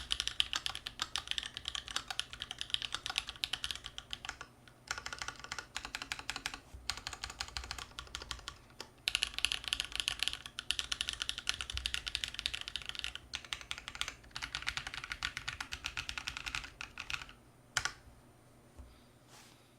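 Fast typing on a custom mechanical keyboard with Holy Panda tactile switches on a steel plate and GMK ABS keycaps: dense runs of keystrokes lasting a few seconds each, broken by short pauses, ending with a single louder keystroke near the end.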